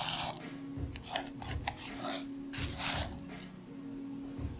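Silicone spatula scraping creamed butter and sugar around the sides of a glass mixing bowl, about six short scraping strokes.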